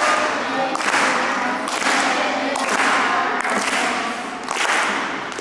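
A group of voices singing together over a loud, even beat about once a second.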